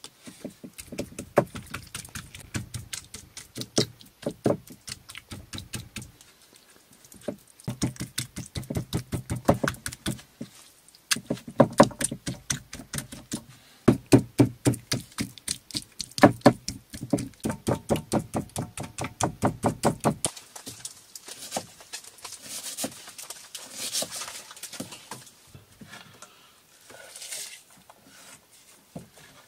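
Capercaillie breast meat being pounded flat for chops: quick repeated knocks with a dull thud, about seven a second, in bursts of several seconds. After about 20 s the knocking stops and only a soft hiss and a few light knocks remain.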